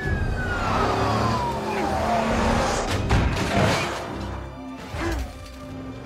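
Film car-chase mix: vehicle engines and tyres on gravel under background music, with a falling whine over the first two seconds or so and a couple of sharp knocks about three seconds in.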